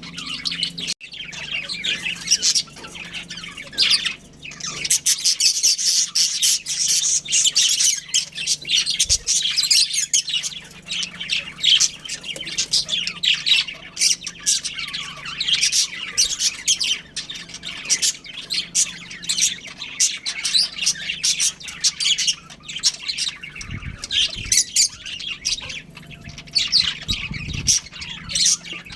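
Several budgerigars chirping and chattering, a continuous stream of quick, high calls with sharper squawks among them.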